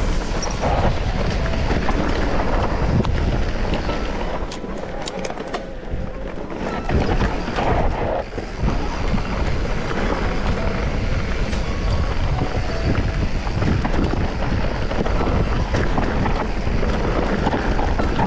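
Mountain bike riding a rough, dry trail: a continuous loud rumble of tyres and wind on the microphone, broken by frequent knocks and rattles.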